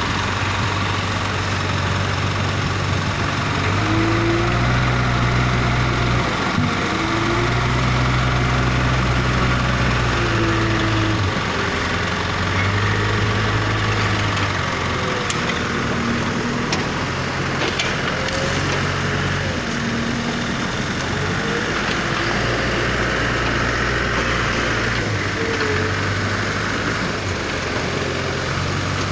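Small wheel loader's diesel engine running, its pitch and level stepping up and down every few seconds as it is revved to work the bucket and drive, then eased back.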